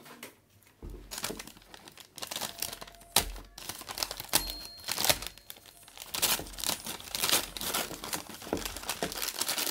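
Brown paper takeaway bag crinkling and rustling as it is gripped and pulled open, a dense run of sharp crackles that starts about a second in.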